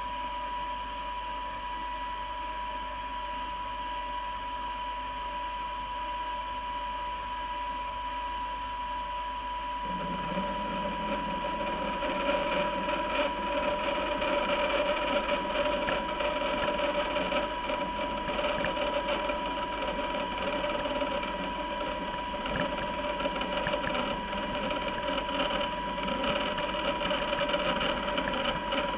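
Band saw running with a steady whine. About ten seconds in, the blade starts cutting a hand-fed workpiece, adding a louder, uneven cutting noise that lasts until just before the end.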